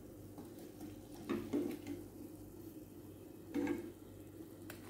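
A metal slotted spoon clinking and scraping against a frying pan as fried urad dal vadais are lifted out of the oil, in two short bursts of clatter, with a sharp click near the end.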